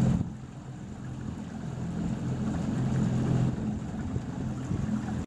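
Steady low hum of a small boat motor pushing the canoe, with faint water noise; the level dips just after the start and then comes back up.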